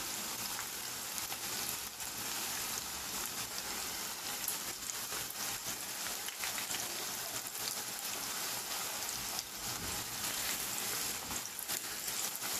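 Coated chicken strips deep-frying in hot oil in a pan: a steady sizzle with many fine crackles.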